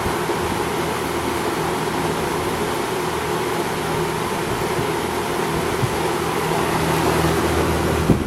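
Mid-1970s Westinghouse 20-inch two-speed box fan, model AW12-1, running steadily: a rush of moving air over a low motor hum.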